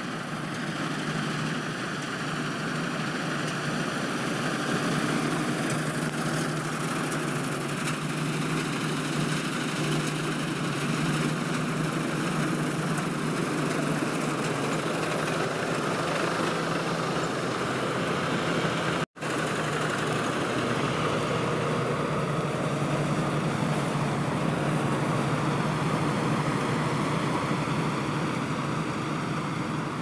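Self-propelled combine harvester running steadily while it cuts standing wheat: a continuous engine drone with the whirring of its cutter header and threshing machinery. The sound drops out for an instant about two-thirds of the way through.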